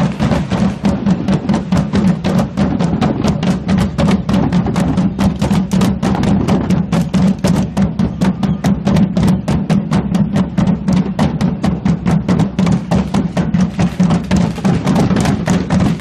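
Marching drum band playing a fast, steady beat, about five strikes a second, with deep drum tones under sharp stick hits.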